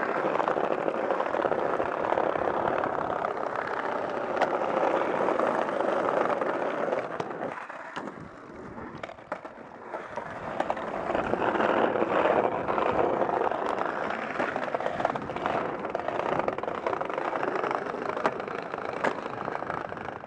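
Skateboard wheels rolling fast over paving tiles: a steady rumble broken by sharp clacks of the board against the ground, quieter for a couple of seconds near the middle.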